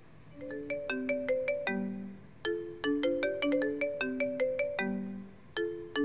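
Mobile phone ringing with a marimba-style ringtone: a short bright melody of struck, mallet-like notes, starting about half a second in and repeating with brief pauses between repeats.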